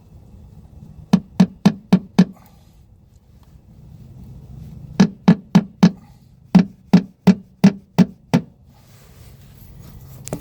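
Hammer tapping a 3/32-inch steel roll pin into a pressed-in clinch nut: about fifteen sharp, ringing metal strikes in three quick runs of roughly three to four blows a second. The pin locks the loose nut so it no longer turns in the sheet metal.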